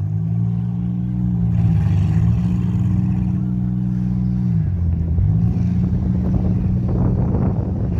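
Demolition derby car engines running loud under load, dropping in pitch about five seconds in and then revving back up.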